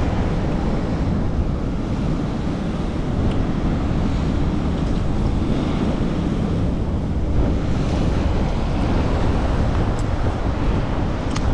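Steady wind buffeting the action camera's microphone, over the wash of sea surf on rocks.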